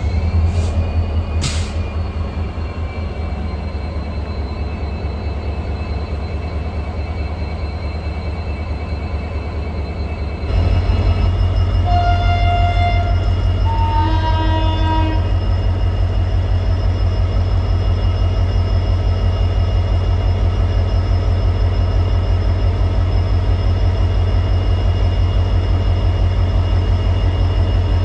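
EMD 16-cylinder 710G3B two-stroke diesel engine of a WDP-4 locomotive running with a steady deep hum, which gets suddenly louder about ten seconds in. A few short pitched tones sound a couple of seconds after the jump.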